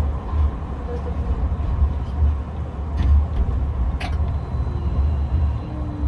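Tram running or idling, heard from inside the passenger cabin as a steady low rumble, with two sharp clicks about a second apart midway through.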